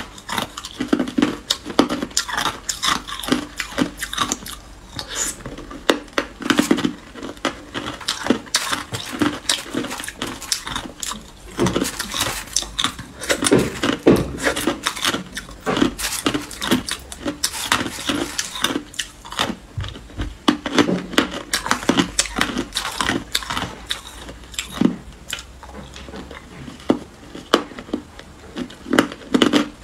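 Hard clear ice being bitten and chewed close to the microphone: a dense, irregular run of sharp cracks and crunches.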